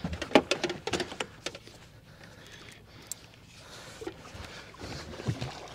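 A quick run of sharp clicks and knocks through the first second and a half, then faint handling noise with one more click about three seconds in.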